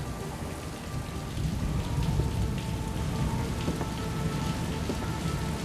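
Steady rain with a low rumble of thunder, a storm in the film's soundtrack, under faint held notes of score.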